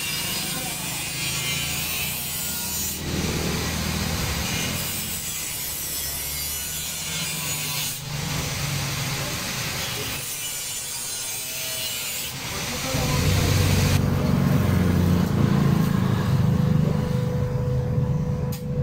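A power tool cutting at a workbench: a harsh, rasping hiss that stops and restarts a few times. In the last few seconds a louder, lower hum and rumble takes over.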